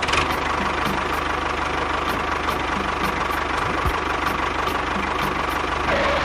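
Small motor of a miniature DIY tractor or bulldozer running steadily, with a light regular ticking.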